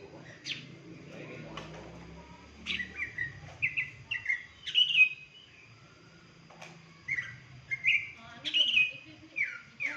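A wild-caught caged songbird singing: runs of short, sharp downslurred chirps, coming in two bursts, about three seconds in and again about seven seconds in.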